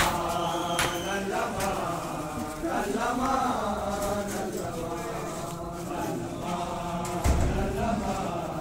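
A group of men chanting a noha, a Shia lament, together, with an occasional sharp slap of matam, a hand beating on the chest.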